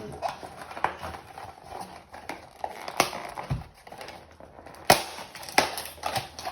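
Small metal parts and packaging being handled on a workbench: an irregular run of light clicks and knocks, with a sharper knock about five seconds in, as old nail-gun springs and parts are set aside and the new spring kit is unpacked.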